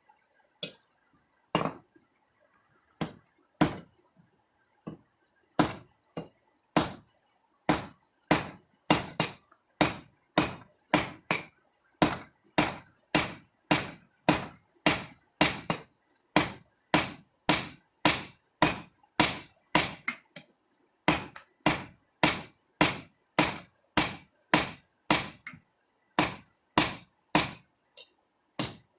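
Blacksmith's hammer striking rebar steel being forged into a knife blade on the anvil. A few scattered blows come first, then a steady run of about two strikes a second, with a brief pause partway through.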